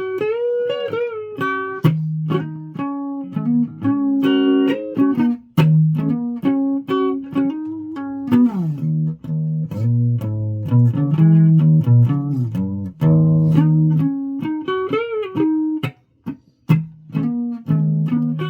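A guitar being played: a continuous line of picked single notes and low notes, with several bent notes that glide up and down in pitch.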